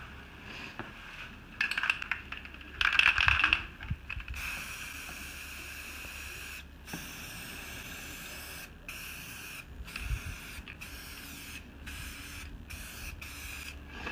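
Aerosol spray-paint can hissing as paint is sprayed onto the water surface of a hydro-dip tub, building up the paint film. It starts with two louder bursts in the first few seconds, then settles into a long even hiss broken by several brief pauses.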